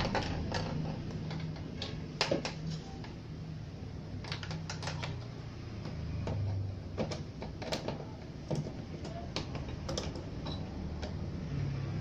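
Irregular light clicks and taps of pliers working on the plastic control knobs and metal front panel of a Xenon Pro-XA 1240F power amplifier as the knobs are pried off, over a low steady hum.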